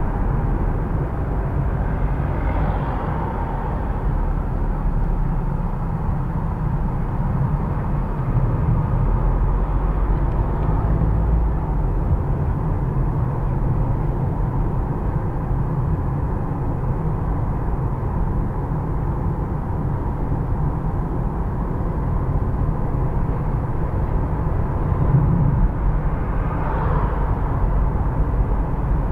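Steady low road rumble of a car driving through city streets, with brief swells of passing traffic a few seconds in and again near the end.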